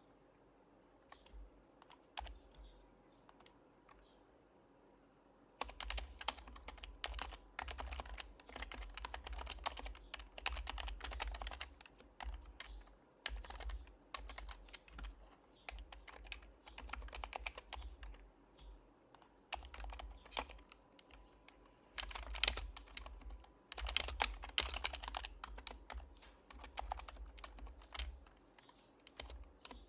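Typing on an HHKB Professional Hybrid Type-S keyboard with its silenced Topre switches. A few scattered clicks come first, then fast runs of typing from about five and a half seconds in, broken by short pauses.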